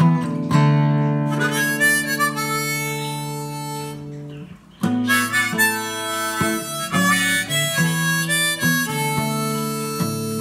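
Harmonica in a neck rack playing long held notes over a strummed acoustic guitar, a song's instrumental opening. The music drops away briefly a little before halfway, then resumes.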